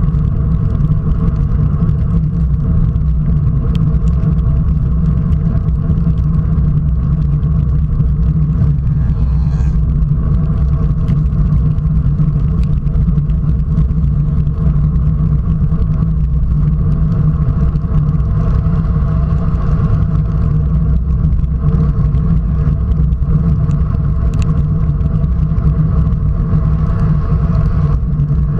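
Steady low wind rumble on a bike-mounted camera's microphone as a road bike rides fast on a wet road, with tyre noise under it.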